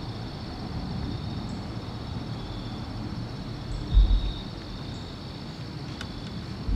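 Outdoor ambience: a steady high insect trill over a low rumble. A dull low thump comes about four seconds in and another right at the end.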